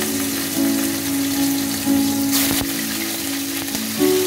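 Marinated fish pieces sizzling as they fry in hot mustard oil, with a louder surge of sizzling about two and a half seconds in as a second piece goes into the oil.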